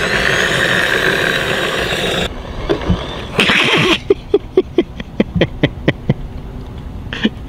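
Hart 40V brushless lawn mower ridden across asphalt, running with a steady whirring noise that cuts off suddenly about two seconds in. Later comes a quick, even run of sharp clicks, about five a second, each with a low note in it.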